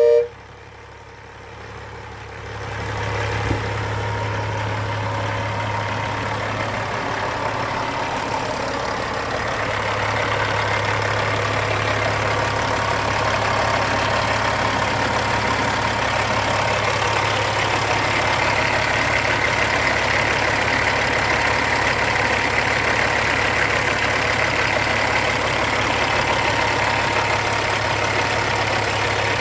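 A Leslie Super Typhoon train horn's blast cuts off sharply at the very start. About two seconds later a Freightliner truck's diesel engine comes in idling steadily and gets a little louder around ten seconds in, running to refill the air tanks that the horn has drained.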